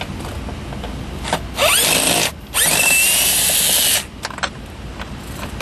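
Cordless power drill with an 8mm socket backing out a console bolt. It runs in two bursts about two seconds in, the motor whine rising as it spins up.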